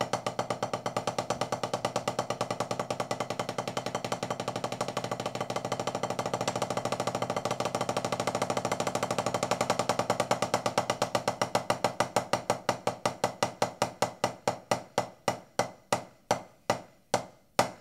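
Single stroke roll on a drum practice pad: wooden drumsticks alternate right and left in a fast, even roll, then slow down over the last few seconds into separate strokes about four a second before stopping.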